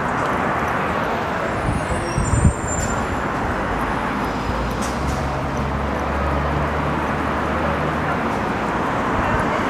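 Steady street traffic noise of passing cars, with a brief low thump about two and a half seconds in and a low engine hum from about halfway that fades out near the end.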